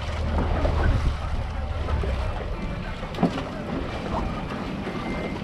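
A Yamaha outboard motor runs as a steady low hum that stops a little over two seconds in, over water noise and wind on the microphone. One sharp knock is heard about three seconds in.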